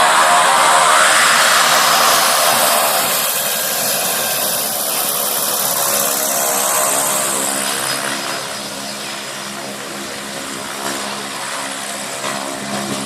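Propeller engine of a skydiving plane close by, loud with a strong rushing noise at first. About eight seconds in it drops quieter and settles to a steady lower hum as the plane slows after landing on the field.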